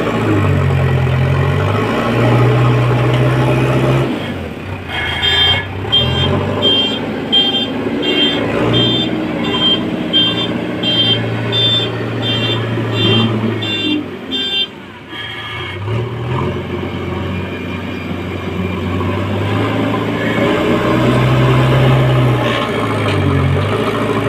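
Diesel engine of a JCB 3DX backhoe loader working, its pitch rising and falling with load. From about five seconds in, a reversing alarm beeps about one and a half times a second for roughly ten seconds, then stops.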